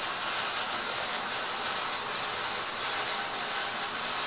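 Steady airflow hiss from a laminar flow hood's blower, with a faint tick about three and a half seconds in.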